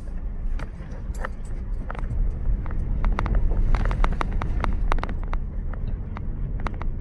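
Ford Ranger pickup driving slowly over a rough dirt track, heard from inside the cab: a steady low engine and tyre rumble with frequent short clicks and rattles from the bumpy ride.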